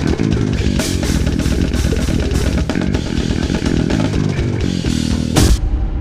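Fast extreme-metal jam on a drum kit and bass: rapid blast-beat drumming with cymbal crashes over a low bass line. It stops on a loud final crash near the end, leaving only a low ringing.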